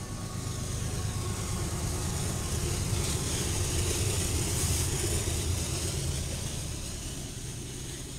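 Diesel locomotives of a freight train passing close by: a low engine rumble with wheel and rail noise that swells to a peak about halfway through, then eases off as the cars behind roll past.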